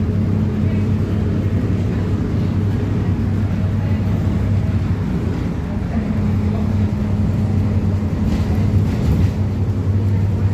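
Mercedes-Benz OF-1721 BlueTec 5 bus's diesel engine running with a steady low note. The note weakens briefly about halfway through, then holds steady again.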